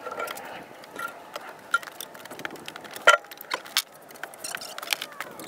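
Scattered light clicks and knocks of people working with tools inside a wooden kiln shed, with a sharper knock about three seconds in.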